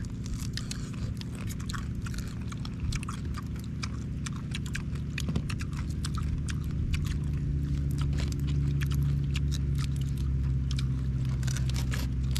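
Grilled mantis shrimp shells cracking as they are peeled by hand and chewed: many small sharp clicks, over a steady low rumble that grows a little louder about halfway through.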